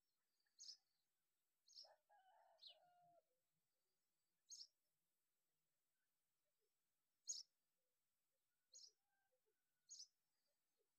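Faint bird chirps: about seven short, high, sharp notes at irregular intervals, one of them sliding downward. About two seconds in comes a lower call that lasts about a second.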